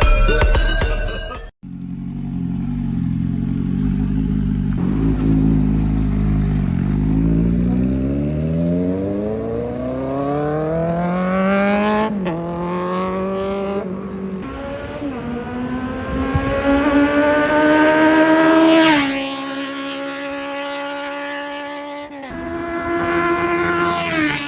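Kawasaki Z800 inline-four motorcycle engine accelerating hard through the gears. The note climbs steeply, drops briefly at each upshift, and peaks as the bike passes by before the pitch falls away. Near the end it revs up once more and drops back. Music plays for the first second or so.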